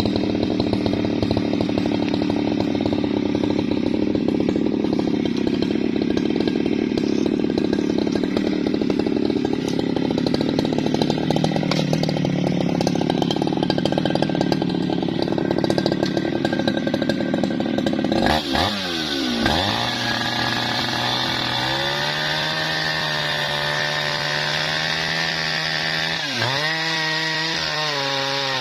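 Jonsered two-stroke chainsaw ripping lengthwise through tough bendo wood under load. About eighteen seconds in, its pitch drops sharply, and the saw then runs on lighter with a wavering engine note, dipping once more briefly near the end.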